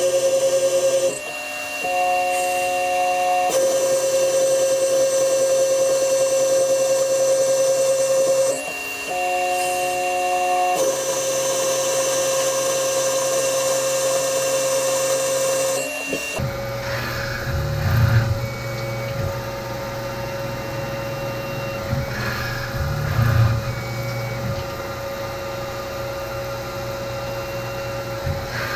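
Tormach CNC mill slotting steel: a steady high-pitched whine from the spindle and cutter, shifting briefly twice. About halfway through it changes abruptly to a lower hum with a few louder surges.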